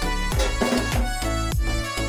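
Background music with a steady dance beat and a deep kick drum.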